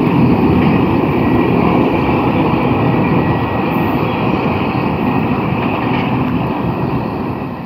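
Double-stack container freight cars rolling over the rails with a steady rumble that fades gradually as the end of the train draws away.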